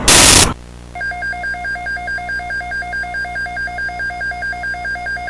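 A loud burst of noise cuts off about half a second in. About a second in, an electronic two-tone alert signal starts, warbling rapidly between two pitches about five times a second; it is the attention tone that precedes an emergency alert broadcast.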